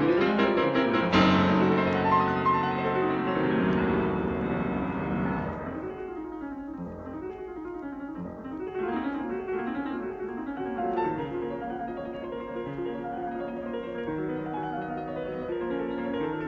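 Solo piano music. It opens with a loud, dense passage that fades away about six seconds in, then continues more quietly in rising-and-falling runs of notes.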